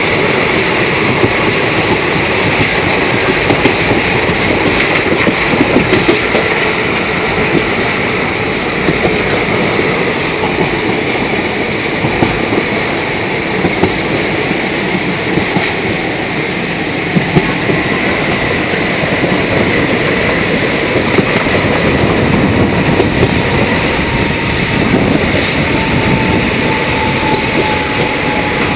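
Passenger train running at speed, heard from an open carriage door: a steady rumble of wheels on the rails with irregular rail-joint clicks. A faint thin whine comes in near the end as the line curves.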